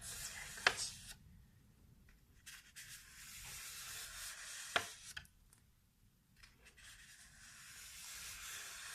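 Paper being rubbed in soft hissing strokes, in three stretches with short pauses between them. A sharp snap comes about a second in and another a little before the middle.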